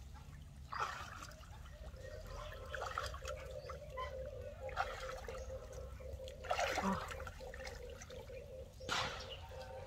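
Shallow pond water splashing and sloshing as hands work under the surface, in about five separate bursts, with a faint steady hum underneath.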